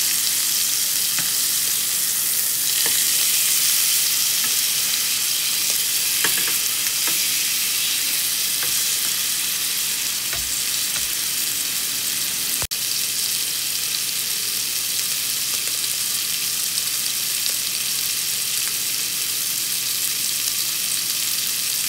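Seasoned beef steaks searing in hot olive oil in a pan: a steady, loud sizzle, with a few faint clicks in the first several seconds and a momentary break a little past halfway.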